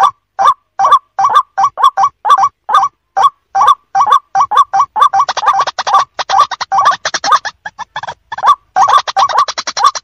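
White-breasted waterhen calling: a loud, harsh 'kru-ak' repeated about two or three times a second, with a faster, higher rattling chatter layered over it from about halfway through and again near the end.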